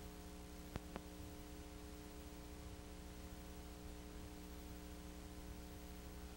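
Steady electrical mains hum with hiss, and two short clicks about a second in; no sound of the motorcycles is heard.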